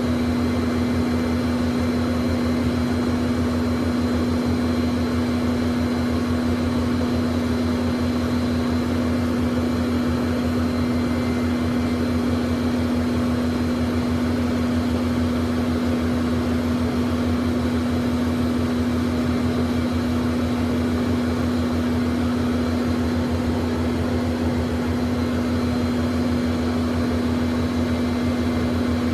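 Learjet business jet's engines idling, heard inside the cabin: a steady hum with a strong low drone and a faint high whine, unchanging throughout.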